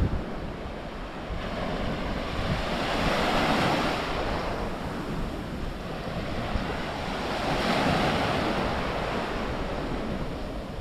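Sea waves breaking and washing up the beach, the surf swelling twice about four seconds apart, with some wind on the microphone.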